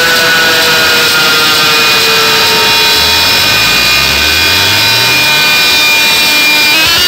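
A loud electronic sound-effect sweep played over a DJ sound system: a dense noise with several tones slowly falling in pitch, and a low tone rising from about three seconds in.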